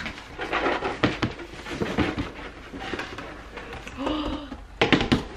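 Cardboard shoe-box tray being slid out of its sleeve: cardboard scraping and rustling in irregular bursts, with a short strained vocal sound about four seconds in and a few sharp knocks just after.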